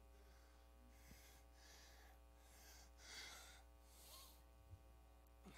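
Near silence: a faint steady electrical hum and room tone, with a few soft breaths.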